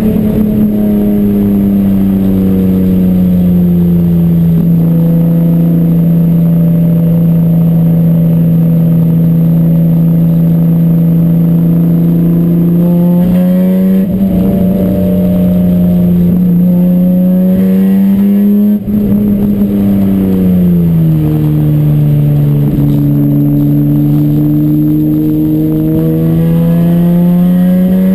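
Race car engine running hard at high, fairly steady revs, its pitch sagging and climbing slowly, with a brief break about two-thirds of the way through. This is the engine that developed a misfire.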